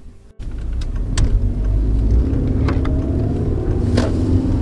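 Steady low rumble of a car on the move, with a few sharp clicks, the loudest near the end.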